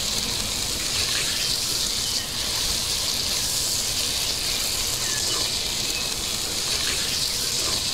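A clay pot of country-chicken curry boiling hard, giving a steady bubbling hiss. The chicken has cooked through after about 35 minutes of boiling.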